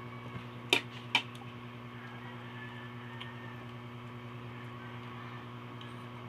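Two sharp clinks of metal utensils against a plate about a second in, over a steady low hum.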